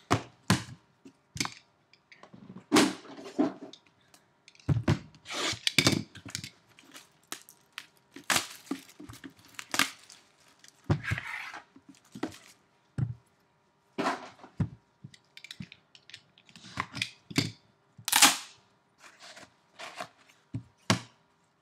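Cardboard trading-card boxes and packs being handled: irregular knocks and taps as boxes are moved and set down, and crackling as plastic wrapping is torn off.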